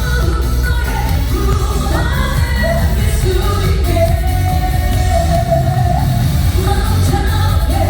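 Trot song performed live over a backing track, with a steady heavy bass beat and a melody line, played loud through the hall's sound system.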